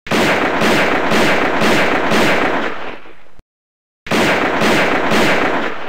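Gunfire sound effect in two long, loud bursts of repeated shots, about two a second, each starting and cutting off abruptly, with a short gap between them.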